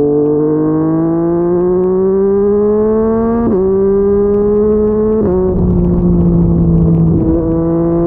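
Yamaha MT-09 three-cylinder engine through a Yoshimura R55 slip-on exhaust, pulling under acceleration with the revs climbing. It drops pitch sharply in two quick upshifts, about three and a half and five seconds in, then holds steadier revs with wind rush building.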